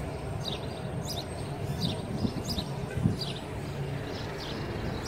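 Small birds chirping repeatedly in short, falling notes over a steady outdoor background hiss.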